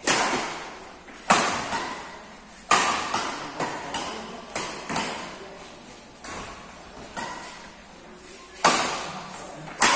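Badminton rackets striking a shuttlecock in a fast doubles rally: a sharp hit every second or so, each ringing on in the echo of a large metal-walled hall.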